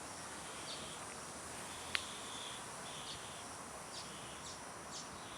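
Faint short bird chirps, a few high notes spaced about a second apart, over quiet outdoor background, with a single sharp click about two seconds in.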